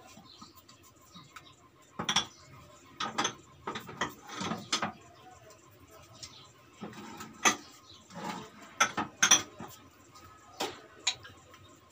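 Oiled hands patting and squeezing a soft ball of mashed chicken-and-potato mixture into shape: irregular soft slaps and sharp clicks, about a dozen in all.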